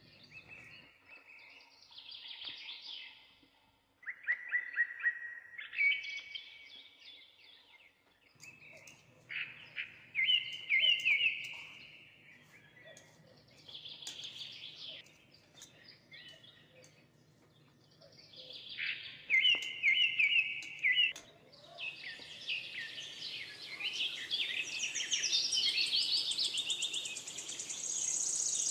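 Songbirds chirping and singing in short repeated phrases, the song growing denser and higher-pitched over the last several seconds. A faint low hum runs underneath.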